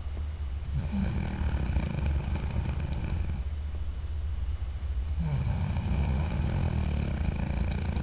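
A sleeping man snoring: two long snores of about two and a half seconds each, with a quieter pause between them, over a steady low hum.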